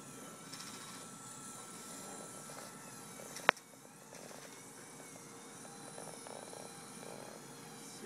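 Small electric motors and plastic gears of a home-built LEGO remote-control dump truck whirring faintly as it drives, the whine wavering up and down in pitch with speed. A single sharp click about halfway through.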